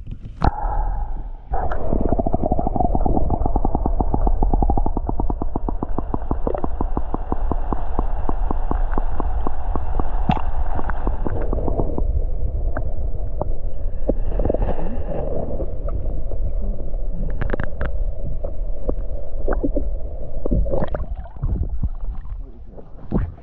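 Muffled underwater sound from an action camera held below the surface: a low rumble with water gurgling and sloshing against the housing. A rapid run of even ticks comes through the first half and stops about halfway, leaving a rougher wash.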